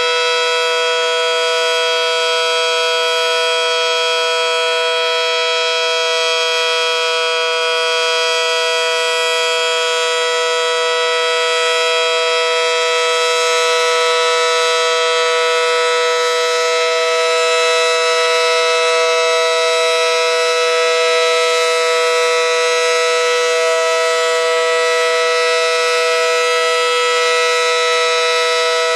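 Federal Sign & Signal Model 5T warning siren sounding its steady Alert signal at full speed: a loud, unwavering two-note chord from its 9/12-port chopper.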